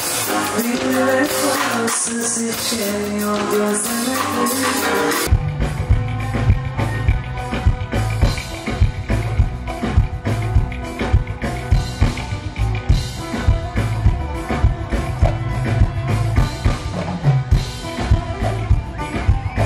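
Live music from a Turkish ensemble with clarinet, violin and guitar. About five seconds in it cuts abruptly to a different passage with a strong bass and a steady, even drum beat.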